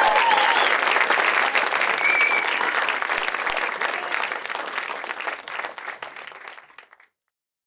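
Audience applauding, with a few voices calling out at the start; the applause fades away and stops about seven seconds in.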